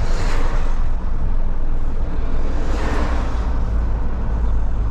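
Heavy truck's diesel engine with a straight-through exhaust running under way, a loud steady drone heard from inside the cab. Two brief rushes of hiss rise over it, one just after the start and another about three seconds in.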